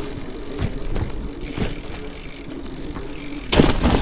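Bicycle rolling across a bridge, tyres running over the deck with a few short knocks from joints and the bike rattling, and a louder rush of noise near the end.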